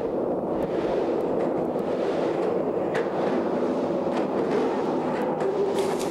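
Skateboard wheels rolling inside a large drain pipe: a steady rumble broken by several sharp clacks of the board.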